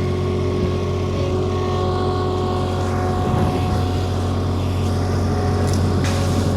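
A farm vehicle's engine runs steadily, with a few knocks near the end.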